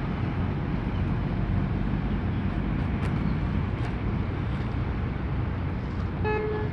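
Steady low rumble of harbour background noise, with a short, pitched horn-like beep near the end.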